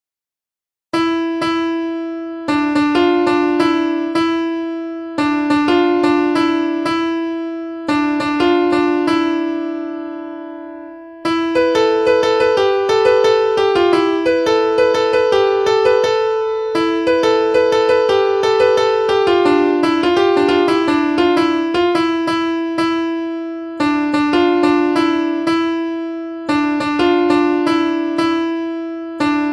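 A ringtone melody played on a piano-like keyboard sound, starting about a second in: short repeated phrases of struck notes that ring and fade, a busier run of notes in the middle, then the opening phrases return.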